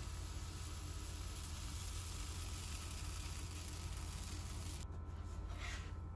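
Brown-rice pancake batter sizzling softly as it is poured into a hot nonstick frying pan; the sizzle cuts off abruptly about five seconds in. A short scrape of a spatula under a pancake follows near the end, over a steady low hum.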